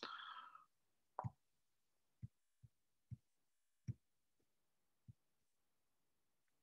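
Near silence with about six faint, short, low clicks or thumps at irregular intervals, from a computer mouse being clicked through dropdown menus.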